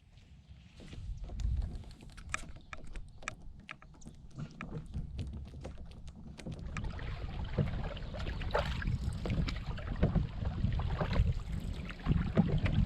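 Canoe being paddled, with wind rumbling on the microphone. A run of light clicks and knocks in the first half gives way to louder water sloshing and splashing, building toward the end.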